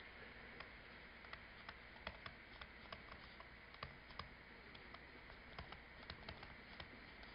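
Faint, irregular ticks and light scratches of a stylus on a tablet screen while words are handwritten, several small clicks a second over near silence.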